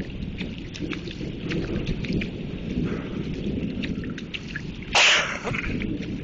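Storm aftermath: a steady low rumble with scattered drips and taps of rain and melting hail. About five seconds in there is one sudden, loud, short burst of noise.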